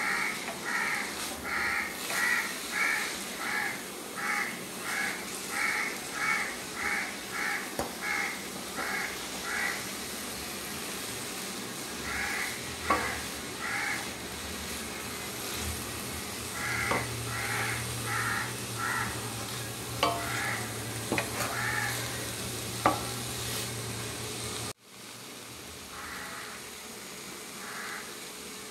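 A crow cawing in three runs of quick, evenly spaced caws. Under it, sliced beans sizzle as they stir-fry in a kadai, and a wooden spatula scrapes now and then.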